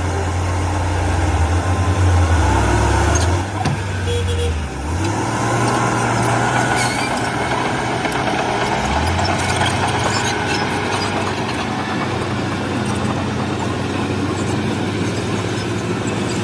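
Heavy diesel engine of earthmoving machinery running steadily, its low note shifting twice, about five and nine seconds in, as throttle or load changes.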